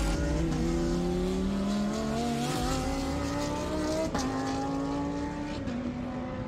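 Lamborghini Huracán race car's V10 engine accelerating hard out of a corner, its pitch climbing through the gears, with quick upshifts about half a second in and again about four seconds in.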